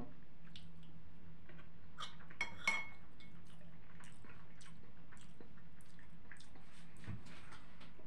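Metal spoon scraping and clicking against a plate of buckwheat, with a cluster of louder clinks about two and a half seconds in, one of them ringing briefly. Small wet chewing sounds come in between.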